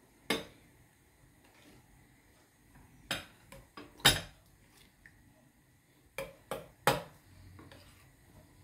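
Metal spoon clinking against a small stainless-steel bowl while stirring thick yogurt: about seven sharp clinks at uneven intervals, the loudest about four seconds in.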